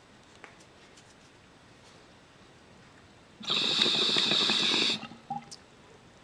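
Glass dab rig bubbling with a hiss as a hit is drawn through its water. It lasts about a second and a half, then stops abruptly.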